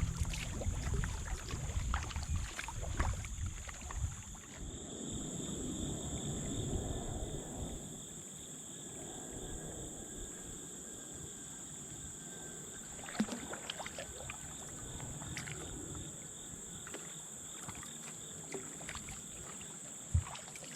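Kayak being paddled on a river: water noise and scattered paddle knocks, with a steady high-pitched drone throughout. Low rumbling fills the first several seconds, then it quietens; there is a sharper knock about two-thirds of the way through and another near the end.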